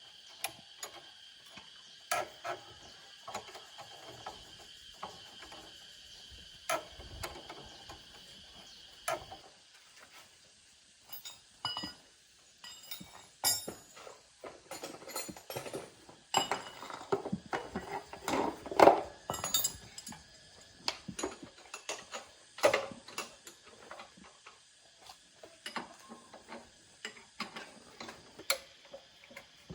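Irregular metallic clinks, taps and knocks of hard objects being handled, busiest around the middle. A faint steady high-pitched tone stops about a third of the way in.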